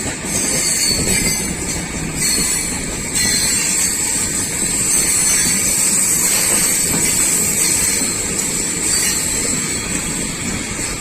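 Passenger train running on the line, a steady rolling rumble with a continuous high-pitched whine held over it.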